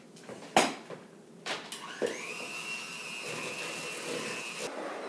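Handheld electric mixer beating butter, sugar and eggs in a mixing bowl: two knocks, then the motor spins up with a rising whine about two seconds in, runs at a steady pitch, and cuts off shortly before the end.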